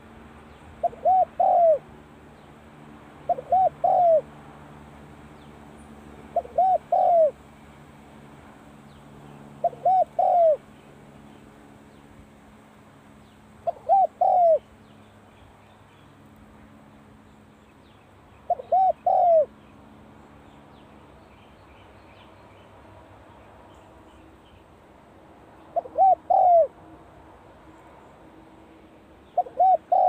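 Spotted dove cooing: eight short phrases of a few quick notes each, about a second long, coming every three to seven seconds.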